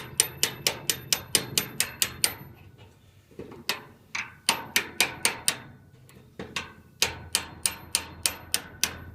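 Hammer tapping all over a seized Master Lock padlock to free up its stuck mechanism: quick runs of sharp metal taps, about four a second, in three bursts with short pauses between them.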